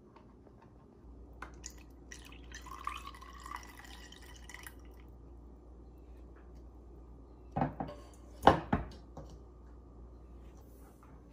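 Chicken broth trickling and dripping through a funnel into a small drinking glass for a couple of seconds, followed about two-thirds of the way through by a few sharp knocks, the loudest sounds here.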